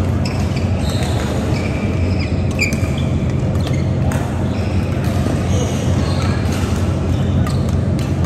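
Badminton rally: a few sharp cracks of rackets striking the shuttlecock, with short shoe squeaks on the court. Under them runs a steady low hum with voices in a large hall.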